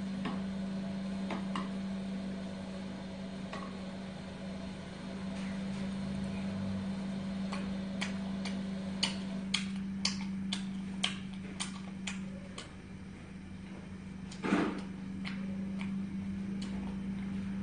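A steady low hum with a run of sharp ticks in the middle, about two a second for several seconds, and one short louder noise near the end.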